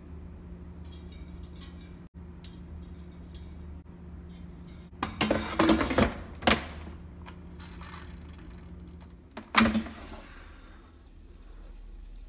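The drawer basket of a GoWise USA air fryer clattering and clunking as it is pushed into the fryer, a burst of knocks and rattles about five seconds in, then a single sharp knock about nine and a half seconds in.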